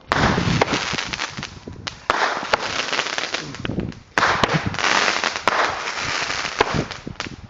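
Consumer fireworks going off: three loud volleys about two seconds apart, each a dense run of sharp cracks and pops that starts suddenly and fades away.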